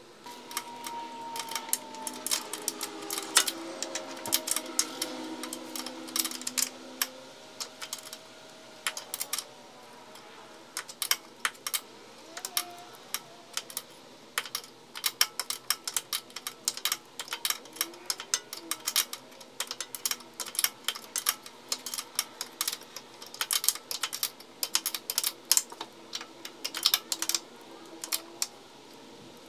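Hand ratchet wrench clicking in quick, irregular runs, with small metallic clinks, as bolts are run in on a car's front control arm mount.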